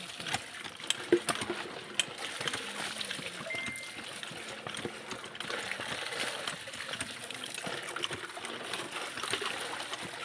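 Water splashing and trickling as freshly gathered clams are washed, with a few sharp clicks about one and two seconds in.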